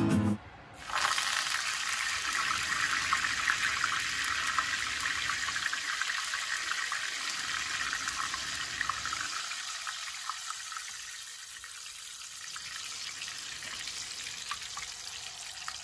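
Curry leaves sizzling and crackling in hot oil in a small frying pan, fried in the oil's leftover heat with the flame turned off. The sizzle starts suddenly about a second in as the leaves hit the oil, then slowly dies down.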